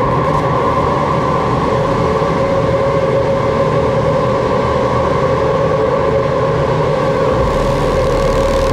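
No-input mixer feedback from a Behringer mixer with its outputs patched back into its own inputs, passed through a compressor and a Hologram Microcosm pedal. It holds a steady tone with a fainter tone an octave above it, over a low rumble.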